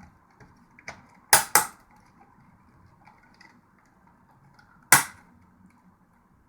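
Plastic snap-fit latches of a Seagate Expansion Desktop drive enclosure cracking loose as the case is pried apart: two sharp snaps in quick succession about a second and a half in, and another loud snap about five seconds in.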